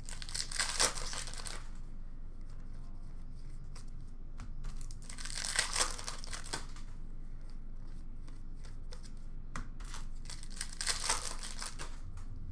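Plastic wrappers of Upper Deck hockey card packs being torn open and crinkled, in three bursts about five seconds apart. In between come light clicks and rustles of cards being handled.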